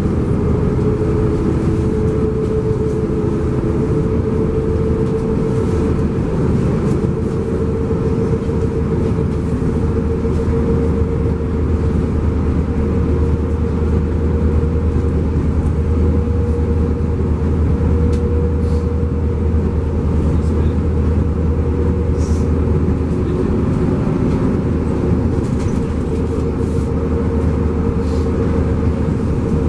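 LiAZ-5293.60 diesel city bus under way, heard from inside the cabin: steady engine and road noise with a low drone and a steady whine.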